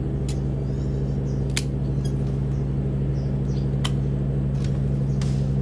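A knife cutting and scraping at the trunk base and roots of a Wrightia religiosa (anting putri) bonsai stock makes a handful of sharp, irregular clicks. A steady low hum runs underneath and is the loudest sound.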